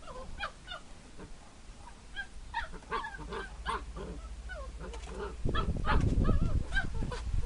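Basset hound puppies yipping and whining in play, a string of short, high squeaky calls that rise and fall in pitch. A louder low rumbling noise joins in about two-thirds of the way through.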